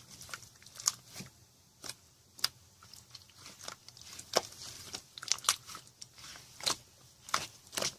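Clear slime being squeezed and pressed by hand, giving irregular sharp pops and clicks, one or two a second.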